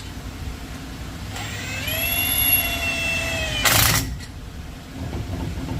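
A small power tool's motor winds up, runs at a steady pitch for about two seconds and stops, followed at once by a short, loud burst of noise.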